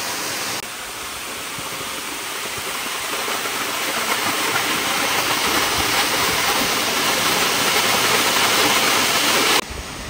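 Henrhyd Falls, a 90-foot waterfall, pouring into its plunge pool: a steady rush of falling water and spray that grows gradually louder, then drops away suddenly just before the end.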